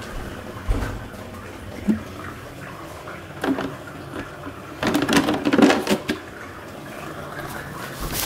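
Knocks and clatter of kitchen things being handled at a countertop compost bin, with a few separate knocks and a louder burst of clattering and rustling about five seconds in.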